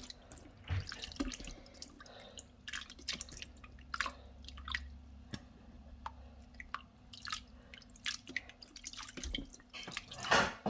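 Irregular wet clicks and drips as rani fish is handled in spice paste in the kitchen, with a louder crackle near the end.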